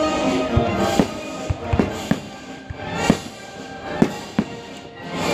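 Fireworks bursting in an irregular series of sharp bangs, about one every half second to second, over live orchestral music.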